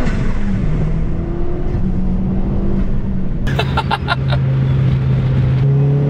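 Big-turbo 1.4-litre turbocharged Ecotec four-cylinder of a Chevy Sonic, running on E85 and heard from inside the cabin at highway speed. Its note holds steady, dropping in pitch and stepping back up a couple of times. A short burst of the driver's laughter comes about halfway through.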